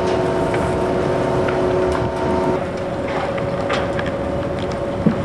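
Bucket wheel excavator running as its wheel digs: a steady mechanical drone with several held whining tones, over scattered rattles and clanks. Some of the whining tones drop out about halfway through, and there is a short knock near the end.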